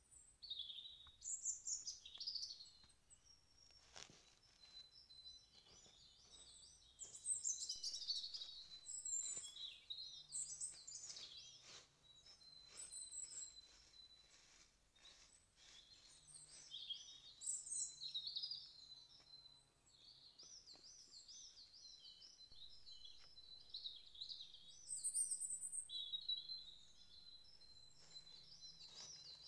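Songbirds singing in woodland: overlapping warbling trills and chirps, with a few faint knocks and rustles mixed in.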